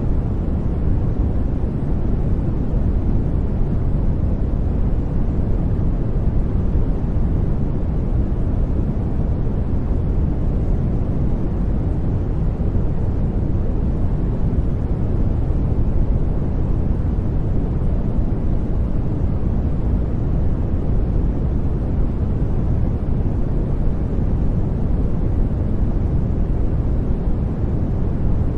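Steady synthetic noise track, weighted toward the low end so it sounds like a deep, even rush, unchanging throughout.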